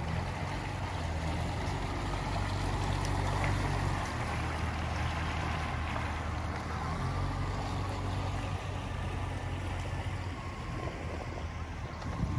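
A motor running with a steady low hum over a constant wash of water noise.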